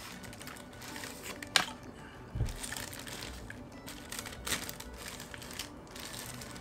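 Paper food wrapper crinkling as it is handled and peeled back, with sharp crackles about one and a half seconds in and again about four and a half seconds in. Faint background music runs underneath.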